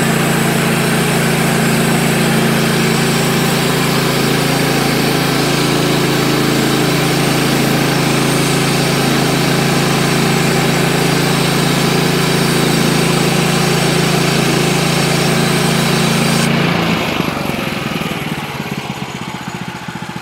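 Woodland Mills HM130MAX bandsaw sawmill running steadily on its gas engine as the band blade cuts lengthwise through a small log, the final cut that leaves a 4x4. About 17 seconds in, the cutting noise stops and the engine drops to a quieter, lower idle.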